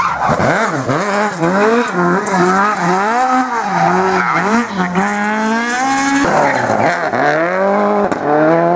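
Mk2 Ford Escort rally car's engine revving hard, its pitch swooping up and down in quick swells as the car is drifted, with tyre squeal. A little after six seconds in, the sound switches to a Subaru Impreza rally car's engine, whose pitch falls steadily near the end.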